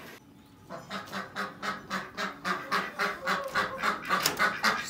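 Ducks quacking in a fast, even run of short calls, about four or five a second. The calls start about a second in and grow louder.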